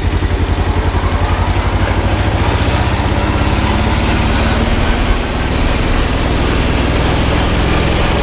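Kubota L175 compact tractor's engine pulling under load in high range as the tractor accelerates. Its firing speeds up over the first couple of seconds, then it runs steadily at speed, with a short dip in level about five seconds in.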